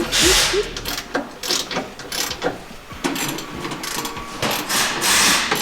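A hand socket ratchet clicking in short runs as bolts on an air-spring bracket are tightened. There are louder rushing bursts near the start and near the end.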